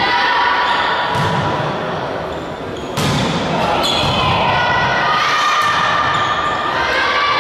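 Volleyball rally in a sports hall: a loud, sharp hit on the ball about three seconds in, with a few lighter hits around it. Players' voices and squeaking in the echoing hall run underneath.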